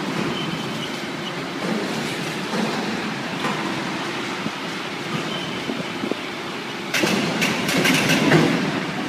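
Steady running noise of workshop machinery, with a louder stretch of clatter and sharp clicks about seven seconds in.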